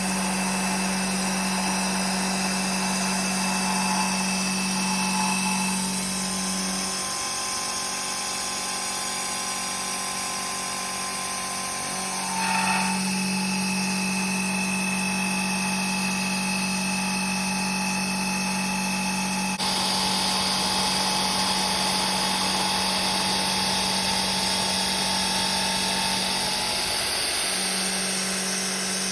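ProtoTrak CNC milling machine running and cutting D2 tool steel: a steady machine whine with a low hum that drops out about seven seconds in, comes back about five seconds later, and drops out again near the end.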